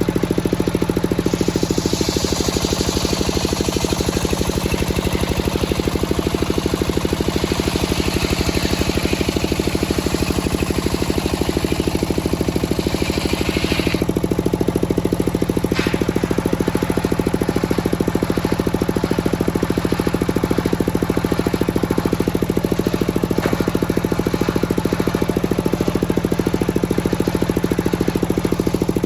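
Engine of a home-built circular sawmill running steadily, with the circular saw blade cutting through a teak log from about a second in until about halfway through, giving a high hissing whine over the engine. After the cut ends the engine runs on alone, with one short sharp knock a couple of seconds later.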